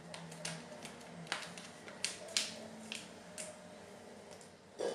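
Foil wet-food pouch crinkling and crackling in the hand as it is worked open, a series of short crackles, with a duller thump near the end.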